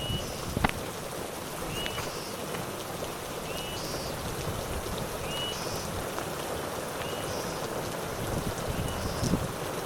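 Steady rain falling, with sharp drip-like taps, the loudest about half a second in. A short high chirp repeats about every two seconds over the rain.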